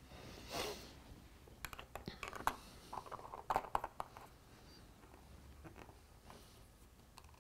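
Light clicks and small scrapes of a metal screw-top lid being put back on a small jar of Bullfrog Snot traction compound and twisted shut, in a cluster from about one and a half to four seconds in.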